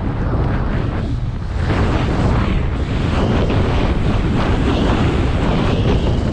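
Wind buffeting the microphone of a helmet camera on a fast ski descent, with the continuous hiss and scrape of skis running through chopped-up snow.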